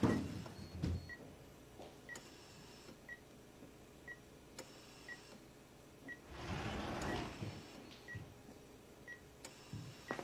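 Hospital patient monitor beeping softly at a steady rate of about once a second, with a short rustle of movement about six seconds in.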